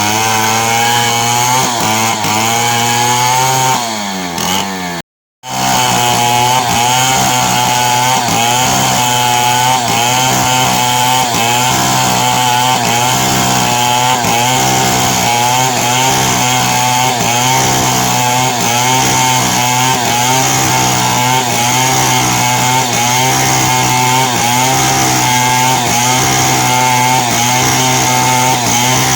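Two-stroke chainsaw cutting lengthwise through timber, its engine pitch wavering under load. About four seconds in the revs fall away and the sound drops out briefly, then the saw runs on cutting.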